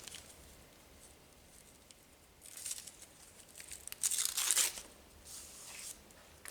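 Wrapping on a set of freshly sharpened planer knives rustling and crinkling as they are unwrapped, in three short bursts.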